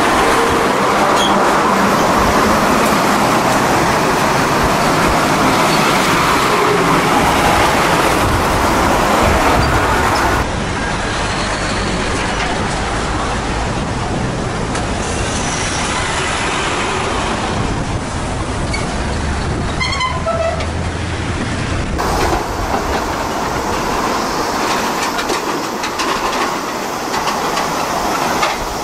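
Heavy diesel tractor-trailer trucks hauling shipping containers and empty container chassis driving past close by: a steady, loud mix of engine and tyre noise.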